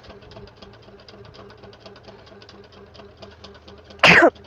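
A woman sneezes once, sharp and loud, about four seconds in: a sneeze brought on by tickling the inside of her nose. Before it, a faint fast steady ticking runs underneath.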